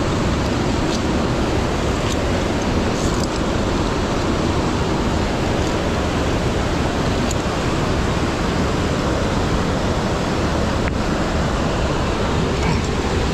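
Steady rushing of a mountain stream and waterfalls through a narrow gorge, an even loud roar of water, with a few faint clicks over it.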